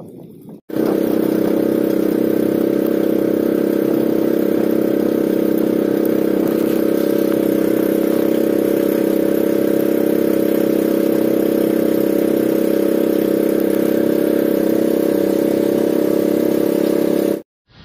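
Outrigger boat's engine running loud and steady at an even speed. It cuts in abruptly about a second in and cuts off just before the end.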